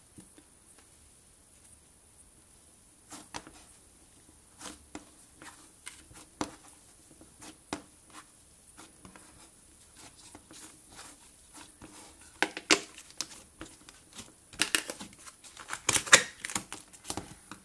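Slime being kneaded, stretched and pressed by hand, giving irregular crackles, clicks and sticky pops. The sounds are sparse at first and come thicker and louder near the end.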